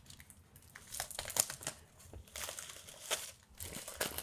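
Close-miked wrapping crinkling and tearing in irregular bursts as it is peeled off a new journal.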